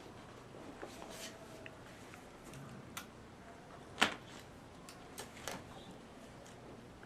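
A few scattered light clicks and knocks over a quiet room hiss, the loudest about four seconds in.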